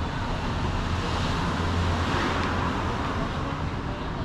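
Street traffic noise, with a motor vehicle going past that swells louder about two seconds in.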